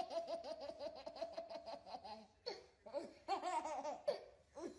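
Baby laughing hard in a long run of quick, high-pitched chuckles. There is a short break about two seconds in, then he laughs again in two shorter runs.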